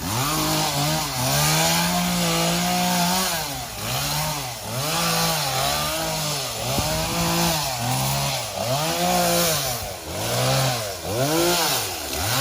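Chainsaw engine revving up and dropping back over and over, about once a second, while cutting.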